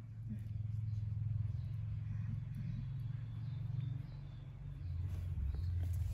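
Domestic cat purring close to the microphone: a steady low rumble that breaks off briefly about four seconds in and picks up again.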